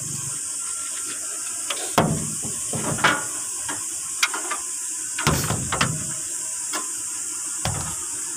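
Scattered sharp clicks and knocks, about seven or eight of them, like hand tools and engine parts being handled, over a steady high hiss.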